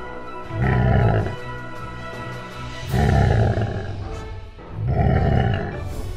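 Dinosaur roar sound effects: three loud roars, each under a second long and about two seconds apart, over background music.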